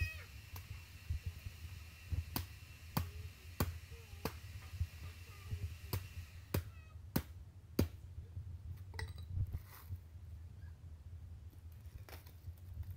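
Hatchet chopping into the fibrous husk of a dry coconut, sharp strikes in short runs under a second apart through the first eight seconds, then only a few scattered knocks near the end.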